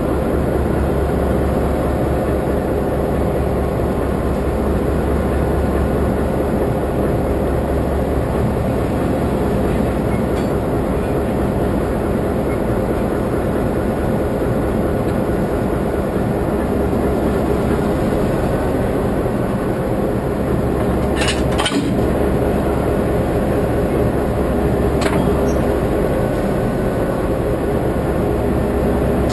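Diesel shunting locomotive's engine running steadily close by, a constant low drone. A brief sharp noise cuts in about two-thirds of the way through, and a weaker one a few seconds later.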